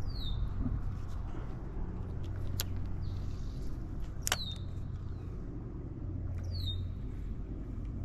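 A bird's short high chirps falling in pitch, three times, over a steady low rumble, with a couple of sharp clicks near the middle.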